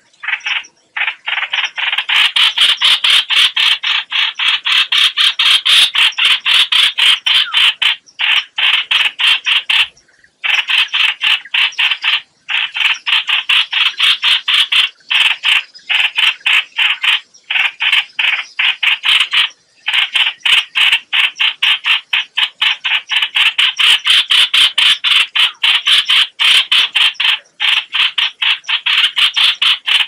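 Bulbul distress calls, a harsh, rapid chattering of several notes a second, in long runs broken by short pauses. The recording is played as a lure to draw bulbuls to a trap.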